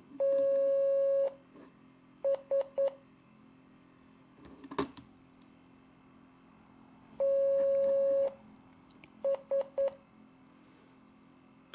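Morse code practice tone sending the letter B twice: one long dah followed by three quick dits (dah-dit-dit-dit), all on the same steady beep, with the pattern starting again about seven seconds after the first.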